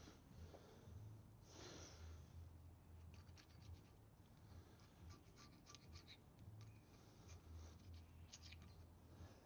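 Faint scraping with a Stanley blade, taking old gasket off a mating face: one longer scrape about a second and a half in, then many short scratchy strokes, over a low steady hum.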